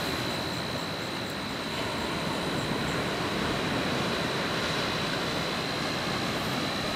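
Surf breaking and washing up over a cobble beach: a steady rushing noise, with a thin steady high whine over it.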